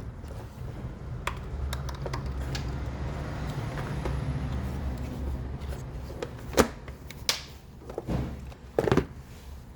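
Hand-handling noises of wiring repair work: several sharp clicks and taps, mostly in the second half, as wire and tubing are handled. A steady low hum runs underneath.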